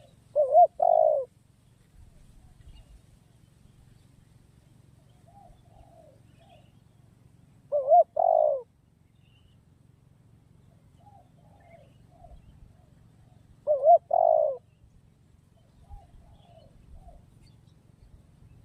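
Spotted dove (tekukur) cooing: three loud multi-note coos about six to seven seconds apart, each under a second long, with fainter coos in between.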